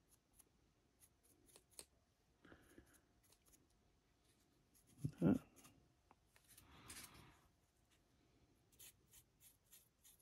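Faint scratchy ticks of a dry brush being worked over a small plastic miniature's raised details, with a single soft knock about five seconds in and a brief rustle just after.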